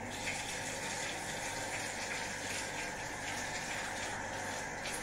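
Shower running behind a closed shower curtain: a steady, even spray of water.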